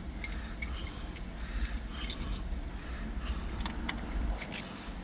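Metal car keys clinking and clicking as they are handled, in scattered small strikes over a low rumble.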